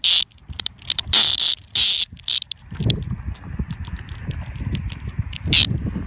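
Periodical cicada held in the hand giving buzzing distress squawks in short bursts: one at the start, a longer one about a second in, and another near the end. Low rumbling handling noise and scattered clicks run between them.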